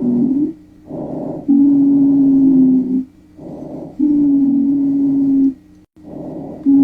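Recorded lung sounds: repeated breaths, each a short noisy phase followed by a longer one carrying a steady, low musical tone that dips in pitch as it ends. A low-pitched wheeze, sounding on about three breaths.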